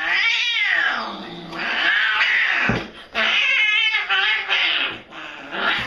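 A cat yowling in several long, wavering calls that rise and fall in pitch.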